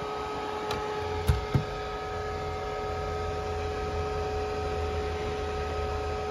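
A steady electrical hum made of several held tones. A low drone comes in about a second in, and two quick knocks follow soon after.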